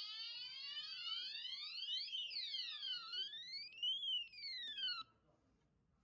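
Dahua conventional fire alarm sounder going off in alarm mode. Its siren tone sweeps slowly up and down in pitch and cuts off suddenly about five seconds in.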